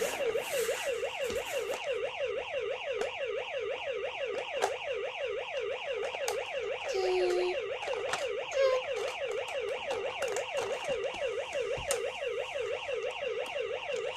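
Toy fire truck's electronic siren sounding continuously: a fast, electronic yelp of about five rising wails a second over a steady high tone, with a few small clicks from the plastic toy.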